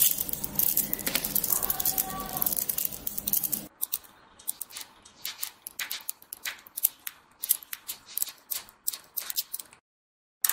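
Small silver magnet balls clicking as they snap onto one another, a quick irregular run of sharp little clicks. It is a busier clatter over the first few seconds while the strand is pulled from the clump, then single snaps as balls are set into a flat hexagonal cluster.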